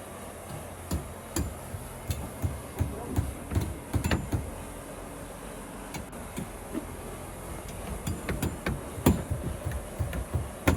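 Irregular knocks and taps of hammering on wooden slab shuttering, with a few louder blows about four and nine seconds in and at the very end.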